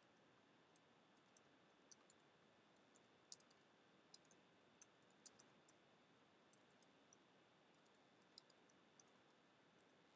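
Computer keyboard keys being typed, faint irregular clicks over near-silent room tone.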